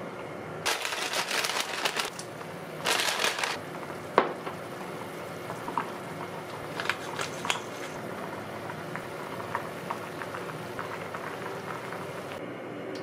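Pot of chicken soup bubbling at a boil, with two short crunching bursts of salt and pepper being ground in during the first few seconds. A sharp metal clink of the ladle on the pot comes about four seconds in, then light ticks of stirring.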